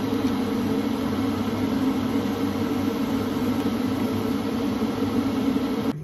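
Electric kettle heating water near the boil: a steady rushing rumble with a low hum.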